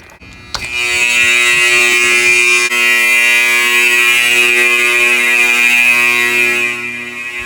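AC-powered fire alarm horns, a Wheelock 31T-115 and an Edwards 374A Adaptahorn, switched on and sounding a continuous, harsh buzzing tone. It starts abruptly about half a second in, is very loud, and drops somewhat in loudness near the end while still sounding.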